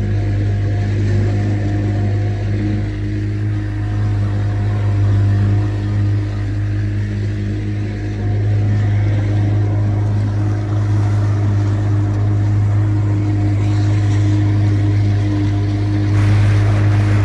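Boat's outboard motor running at a steady speed under way, a constant low hum, with water and wind noise rushing past that gets louder near the end.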